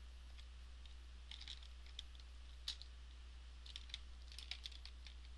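Computer keyboard typing: faint, irregular keystrokes in short clusters, over a steady low hum.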